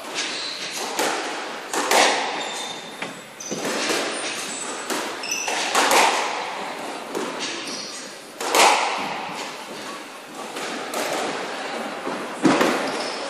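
Squash ball being struck by rackets and smacking off the court walls in a rally: a string of sharp impacts a second or two apart, each ringing briefly in the court.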